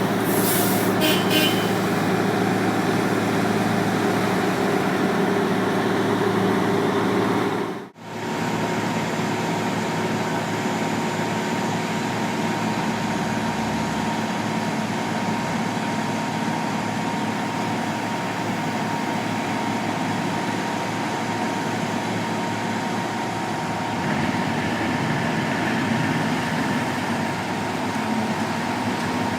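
Heavy road-construction machinery running steadily, with a short hiss in the first second or so. Just before 8 s the sound drops out for an instant and resumes as a slightly quieter, steady machine sound with a thin high tone running through it.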